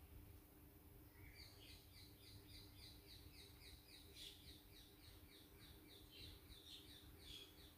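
Near silence with a faint steady low hum. Over it, from about a second and a half in until near the end, a long run of quick, faint, high chirps, about three or four a second.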